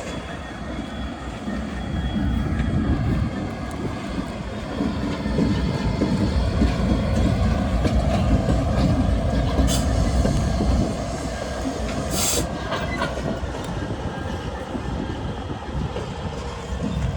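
A train rolling along the tracks: a low rumble that builds about two seconds in and holds through the middle before easing, with faint wheel squeal along the rails and two short sharp bursts of noise about ten and twelve seconds in.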